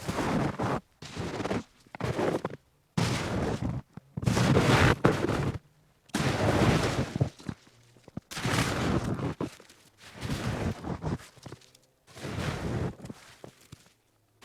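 Footsteps crunching in snow, slow and evenly paced: about nine drawn-out crunches, one every second or two.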